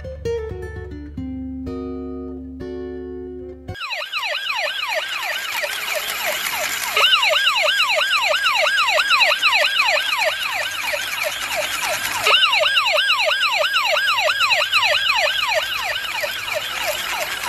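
Plucked guitar music, which stops suddenly a few seconds in and gives way to a battery-powered toy police car's electronic siren: a fast wailing tone that rises and falls about three times a second, getting louder partway through.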